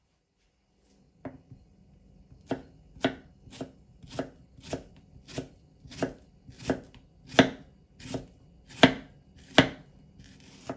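A kitchen knife slicing half an onion thinly on a cutting board: about a dozen crisp cuts, each ending in a knock on the board, in a steady rhythm of a little under two a second. A brief faint scrape follows near the end.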